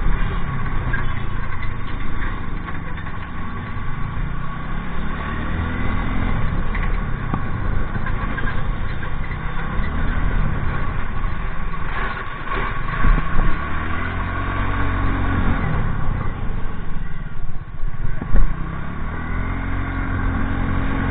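TVS Ntorq 125 scooter's single-cylinder engine pulling through slow traffic, its pitch rising and falling four or five times as the throttle is opened and eased. A brief thump near the end.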